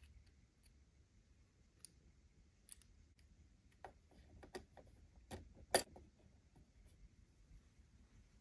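Light clicks and clacks of miniature plastic dishes being set into a tiny metal wire dish rack. A few scattered clicks give way to a quick run of them a little after halfway, the sharpest clack just before the end of that run.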